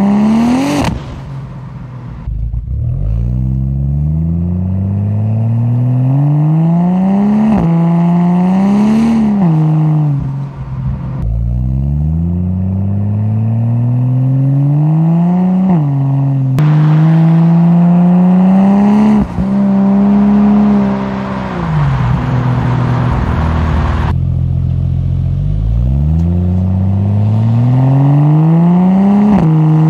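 Turbocharged Ford Barra straight-six through a 4-inch exhaust with its VAREX muffler valve open, picked up by a microphone at the rear of the car. The engine pulls up in rising pitch five or six times, the pitch dropping sharply at each gear change or lift-off.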